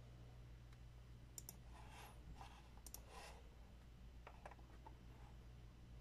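Computer mouse button clicks: a sharp pair about a second and a half in, another pair about three seconds in, and a quick cluster of clicks a little after four seconds, with a soft rustle between them, over a steady low electrical hum.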